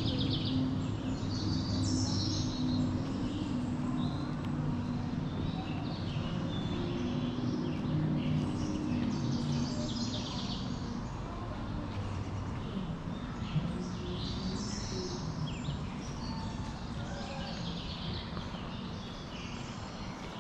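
Songbirds chirping and singing from the trees, many short calls overlapping throughout, over a steady outdoor background, with a low hum underneath that fades out around the middle.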